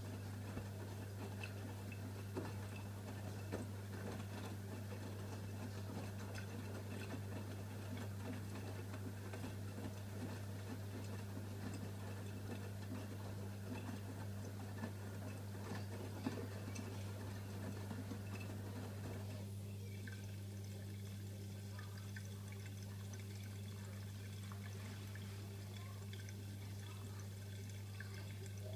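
AEG Öko-Lavamat front-loading washing machine taking in water, a trickling, splashing inflow over a steady low electrical hum. The water noise stops about two-thirds of the way through, and the hum carries on.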